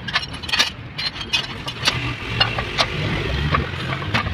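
Scattered metal clinks and knocks of a tyre lever and a manual lever-type tyre changer being worked. A vehicle engine runs underneath, louder in the second half.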